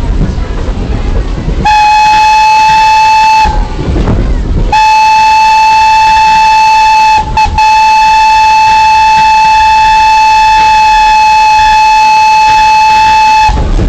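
Train whistle blowing one steady, loud note: a blast of about two seconds, then, after a short pause filled with low rumbling, a long blast of about nine seconds with a brief break partway through.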